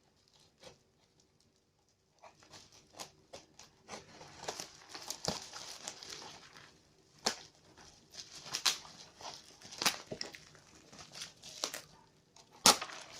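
Plastic packaging crinkling and rustling as it is handled, with scattered sharp clicks and a few louder knocks, starting about two seconds in.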